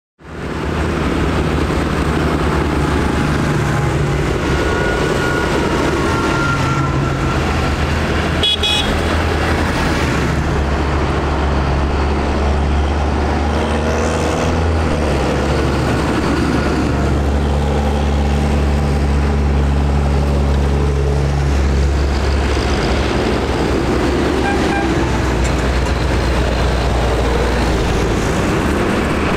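Large farm tractors, John Deere and New Holland, driving past one after another, their diesel engines running steadily with a low drone that changes as each tractor passes.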